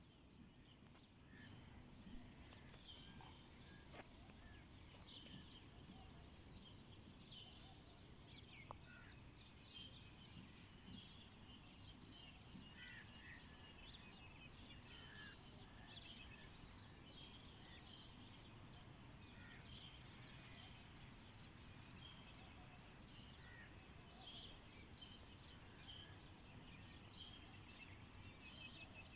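Faint chirping of small birds, many short notes scattered throughout, over low background noise.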